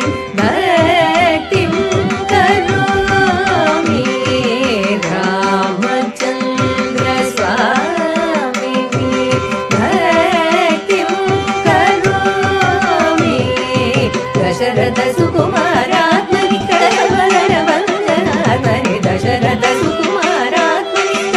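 Carnatic classical performance: a melody with sliding, ornamented notes over a steady drone, with mridangam strokes keeping the beat. The ensemble is female vocals with violin and mridangam, performing a ragamalika kriti in rupaka tala.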